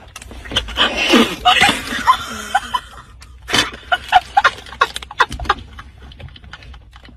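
Two women laughing and shrieking in short, loud bursts.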